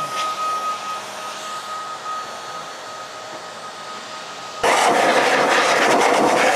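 Handheld BLO car-drying blower running, a steady rush of air with a thin motor whine, blowing water off the car's body and glass. About four and a half seconds in it turns much louder and rougher as the nozzle is aimed into a wheel.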